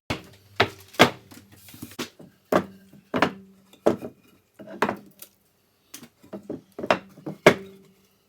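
A series of sharp wooden knocks and clacks at an irregular pace, about two a second, several leaving a short low ringing tone.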